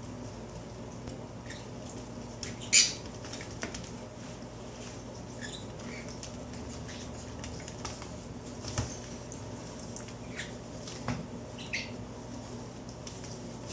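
Steady hum of a forced-air heating vent blowing, with scattered small clicks and squeaks over it; the loudest is a sharp click about three seconds in.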